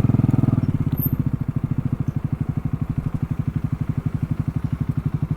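Motorcycle engine idling with a steady, rapid beat, about a dozen pulses a second.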